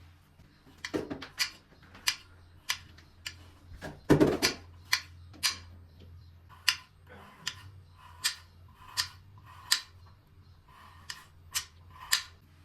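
A series of sharp taps and clicks in kitchen work, roughly one to two a second and unevenly spaced, with a louder knock about four seconds in.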